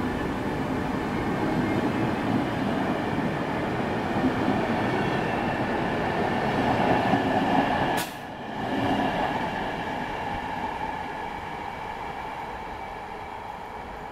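PKP Intercity passenger coaches rolling past on the track with a steady rumble of wheels. A sharp click about eight seconds in is followed by a sudden drop in level. The sound then fades steadily as the end of the train draws away.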